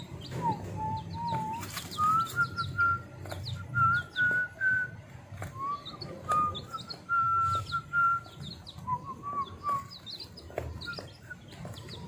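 Young chicks peeping in short, high notes while pecking at feed. Underneath runs a louder, sustained whistle-like tone that wavers and steps between a few pitches, over a low background hum.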